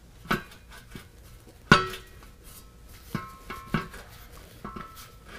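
Stainless steel exhaust muffler being worked onto the exhaust pipe at a slip-fit joint: a series of short metal clanks and clinks, the loudest a little under two seconds in, some with a brief metallic ring.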